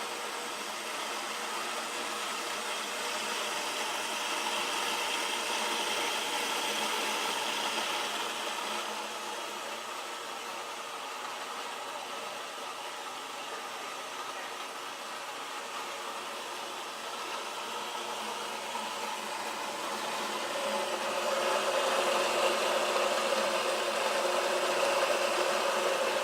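Professional-grade electric coffee grinder running steadily, grinding beans. It gets louder about four seconds in and again after about twenty seconds.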